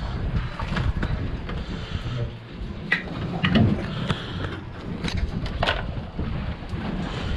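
Wind rumbling on the microphone, with a few sharp knocks and clicks as a fish is held down on a plastic esky lid and tools are picked out of a plastic tackle tray.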